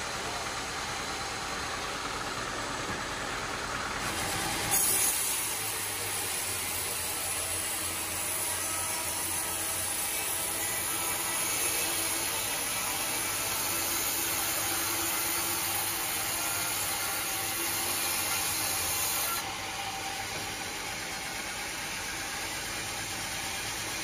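Sawmill band saw running steadily; about five seconds in its blade enters a teak log and saws lengthwise through it with a steady hiss and hum, which drops back to the plain running sound about three-quarters of the way through.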